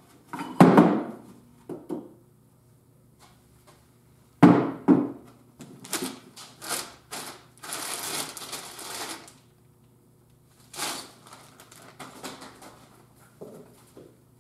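Metal clunks and clatter as the gears and shafts of an NP231 transfer case are handled and set down on a workbench: a loud knock about half a second in, another about four seconds in, a busier run of clatter in the middle, and a few lighter knocks near the end.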